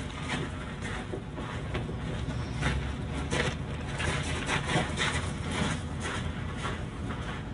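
Irregular clacking steps on hard ground over a steady low rumble.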